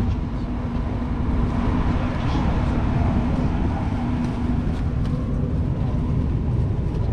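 A diesel engine running steadily at idle: a low rumble with a constant hum.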